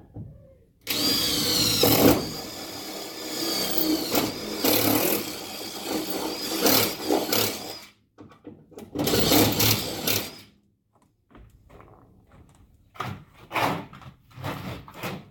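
A power tool working on the bus's sheet metal: a long run of about seven seconds with a wavering high whine, then a second, shorter run. A few sharp clicks or knocks follow near the end.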